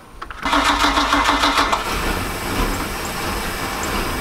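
Mercruiser inboard boat engine being started: about half a second in it cranks with a fast pulsing beat, catches after about a second and a half, and then runs steadily.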